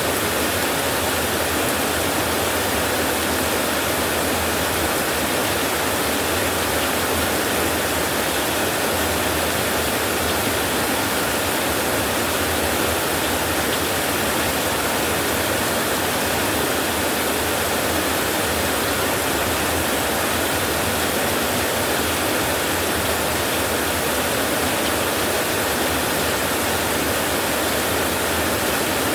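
Heavy rain drumming steadily on a tin roof, an even unbroken hiss with no thunderclap.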